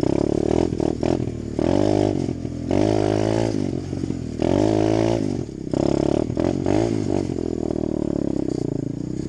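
Apollo 125cc four-stroke pit-style dirt bike engine being ridden, its pitch rising and falling in several swells as the throttle is opened and eased off.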